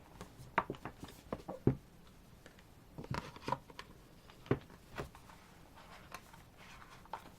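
Music album contents being handled: scattered light taps and clicks, with a short patch of rustling about three seconds in.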